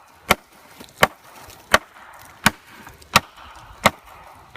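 Heavy handmade combat knife chopping into a wooden branch: sharp blade strikes in a steady rhythm, one about every 0.7 seconds.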